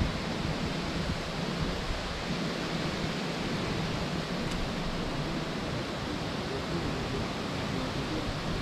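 Steady rushing noise with a low rumble: wind on the microphone outdoors.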